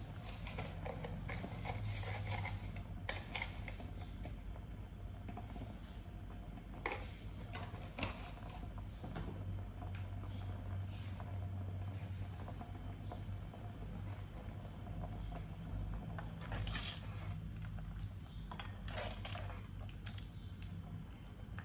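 A pot of chicken soup bubbling on the boil, with soft pops and patters over a steady low hum. Near the end a metal ladle stirs through the pot, with a few short knocks and scrapes.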